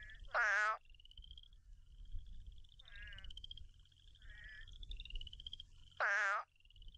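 Recording of Hurter's spadefoot toads calling: two loud, short, wavering "ow" moans about six seconds apart, with fainter ones between them. Behind them, Cajun chorus frogs give a steady run of short rising "brrr" trills, like a comb being stroked, about one a second.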